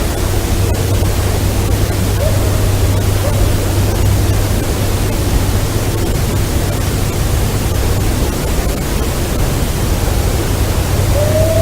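Steady heavy hiss with a low hum, typical of a field recording boosted to bring out faint calls. A brief faint tone sounds about two seconds in, and near the end a long, slightly rising tonal call begins.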